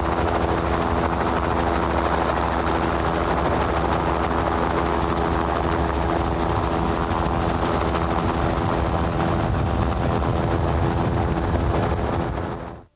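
Helicopter running steadily, heard from aboard: a dense low rotor-and-engine drone with a thin high whine over it, dropping away just at the end.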